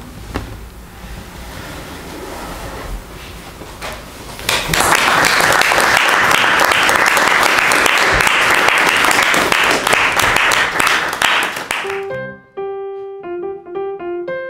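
A small audience clapping by hand, starting about a third of the way in after a quiet pause and lasting about seven seconds. Near the end the applause cuts off and piano music begins.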